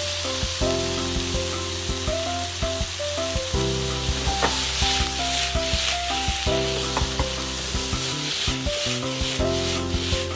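Diced ostrich meat sizzling as it sears in a hot frying pan over high heat, with rubbing and scraping as the pan is shaken and the meat tossed partway through. A simple background melody plays over it.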